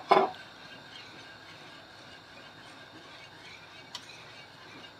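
Wire whisk stirring thickening custard in a steel saucepan: a soft, steady swishing and scraping, with one light tap of metal on metal about four seconds in.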